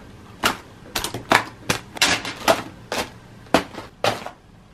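Plastic travel bottles and cosmetics clicking and knocking together as they are packed into a quilted makeup bag: about ten sharp, irregular clacks.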